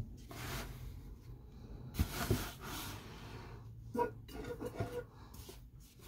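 Quiet handling sounds as fabric toy birds and a small toy bicycle are moved around by hand on a wooden surface: soft rubbing, a light knock about two seconds in, and breaths.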